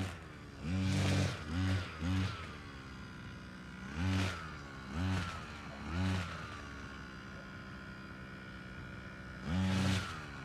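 Small engine of a handheld brush cutter revved in about seven short bursts: a quick three near the start, three more about a second apart, and one near the end. After each burst the whine falls away back to a steady idle.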